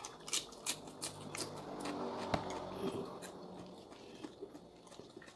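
Close-up crunching and chewing of raw vegetables (cucumber and mustard greens): a quick run of crisp crunches in the first second and a half, then softer chewing with a faint low hum.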